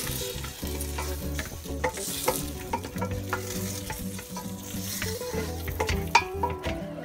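Wooden spatula stirring chopped pork, kamias and chilis as they sizzle in a hot stainless steel pot, the spatula scraping and clicking against the metal at irregular moments, with a sharper knock about six seconds in. The pork is being sautéed with fish sauce and kamias before water goes in for simmering.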